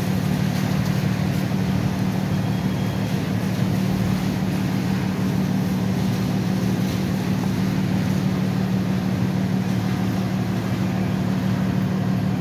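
A large vehicle engine idling steadily, a constant low hum that does not change.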